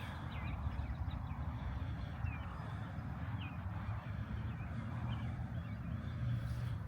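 Outdoor ambience: a steady low rumble with a few faint, short bird chirps scattered through.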